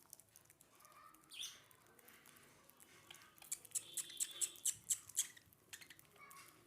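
Lovebirds chirping and squawking: a short high chirp about a second and a half in, then a quick run of about eight sharp clicks mixed with high calls, and another short chirp near the end.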